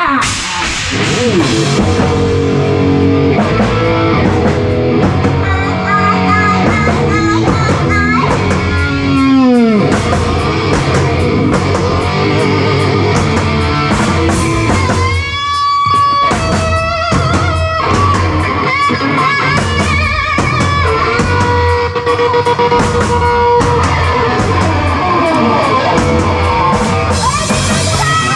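Live hard rock band playing an instrumental passage: distorted electric guitar over bass and drum kit, with a falling guitar pitch dive about nine seconds in and held lead notes later.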